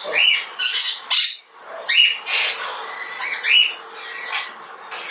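Caged parrots squawking and screeching, harsh calls and short rising cries following one another several times a second.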